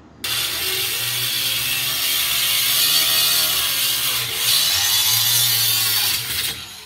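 Corded angle grinder cutting through the steel cabinet of an ATM: a loud, steady screech of the disc on sheet metal over the motor's hum. It starts suddenly just after the beginning, eases briefly about four seconds in, and stops shortly before the end.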